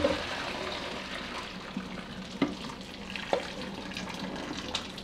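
Water pouring and splashing into a stainless steel kitchen sink as a saucepan of cooked rice is drained, with a few light knocks of the pot.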